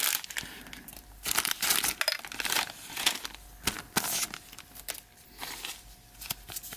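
Plastic and paper packaging crinkling and rustling in gloved hands as a wrapper is ripped open and crumpled, in irregular spells with short pauses between them.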